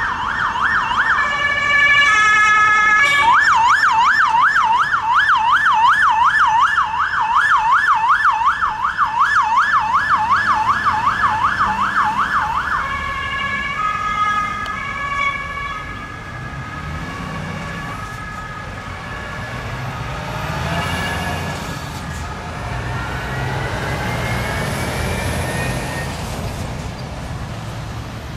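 Mercedes-Benz Sprinter ambulance's siren, cycling between a fast up-and-down yelp and a high-low two-tone. Near the middle it switches to the two-tone, then fades as the ambulance drives away, leaving engine and road noise.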